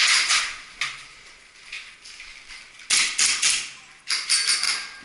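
Airsoft guns firing in three short bursts of rapid sharp clicks: one at the start, one about three seconds in, and one a second later.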